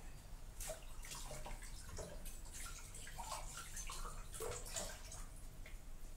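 Liquid gurgling and dripping: a quick run of small watery plops and bubbling sounds over a low steady hum.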